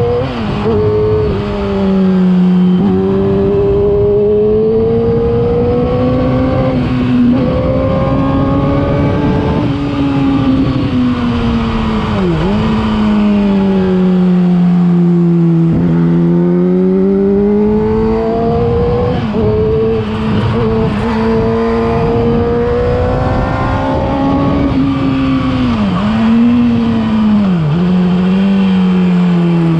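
Yamaha R6 inline-four sportbike engine running through a LeoVince aftermarket exhaust while being ridden. The engine note rises and falls steadily with road speed, and the pitch dips briefly and sharply a few times, around the middle and near the end.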